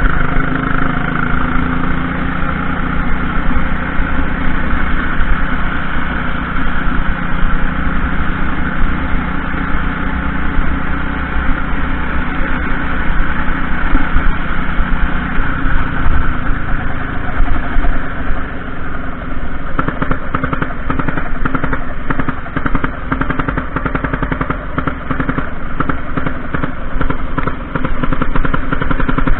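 Junior racing kart's engine running hard through a lap, heard from on board. About halfway through, its steady note changes into a fast, rattling pulse that carries on to the end.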